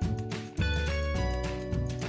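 Instrumental background music: held notes over a deep bass line, the notes changing about every half second.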